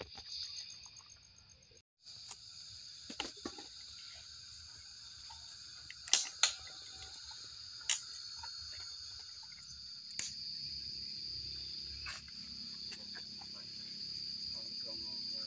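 Night insects trilling steadily and high-pitched, with a few sharp clicks or knocks about six and eight seconds in.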